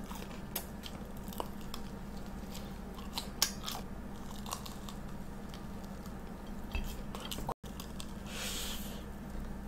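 Close-miked chewing and biting of a fried Korean corn dog, with scattered small crunches and wet mouth clicks and one sharper click about three and a half seconds in.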